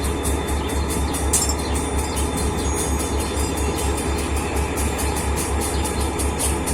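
EMD 16-645-E3 turbocharged V16 two-stroke diesel engine of an SD40-3 locomotive running steadily at idle, with an even, rapid pulsing throb.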